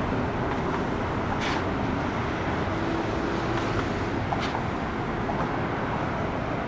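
Jet airliner engines at takeoff power: a steady, loud rumble.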